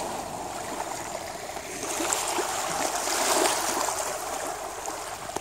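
Small wake waves from a passing powerboat lapping and trickling over a stony lakeshore, with small splashes and pebble clicks.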